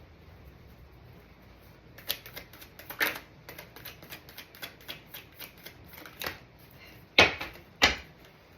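A deck of tarot cards being shuffled and handled: a quick run of small flicks and snaps, then two louder slaps as cards are put down near the end.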